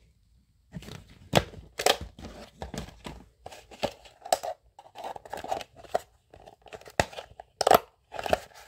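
Hard plastic toy capsule being pried open by hand: irregular plastic clicks, creaks and crackles, with a few loud sharp snaps as the clear dome is worked loose.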